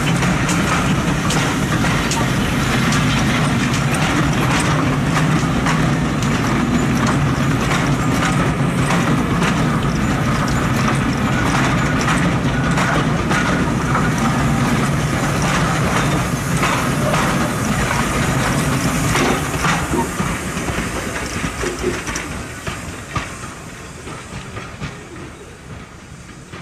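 A steam-hauled train of teak-bodied coaches rolling past behind a GWR 2800 class 2-8-0 locomotive, its wheels clicking over the rail joints over a steady rumble with steam from the engine. The sound fades away over the last several seconds as the train draws off.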